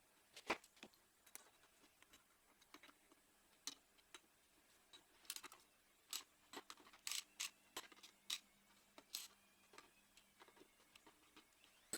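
Faint, irregular light clicks and taps, scattered unevenly over near silence, with a small cluster around the middle.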